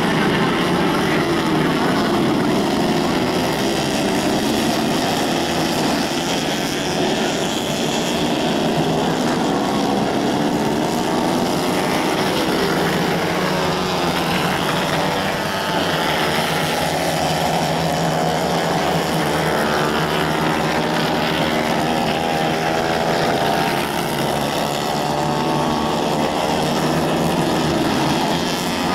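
Racing kart engines running hard, their pitch rising and falling continuously as the karts lap the track. Several kart engines overlap at once.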